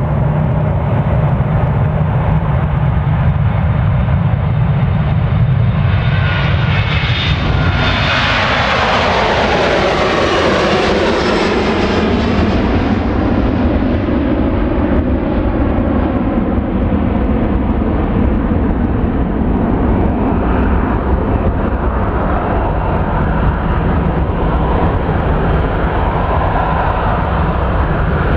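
Boeing 737-400's CFM56-3 turbofan engines at takeoff thrust as the jet rolls down the runway and lifts off. A heavy rumble carries a rushing, whining noise that swells and peaks about ten seconds in as the aircraft passes, its whine sliding down in pitch. It then settles to a steady rumble as the jet climbs away.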